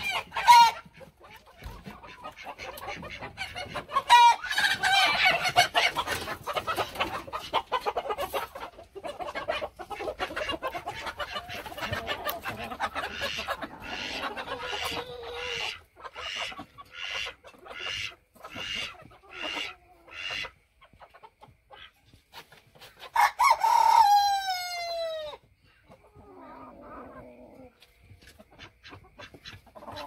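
Chickens squawking and clucking in a commotion, with a run of repeated calls about two a second partway through. A rooster crows about three-quarters of the way in, the loudest moment, its call falling in pitch at the end.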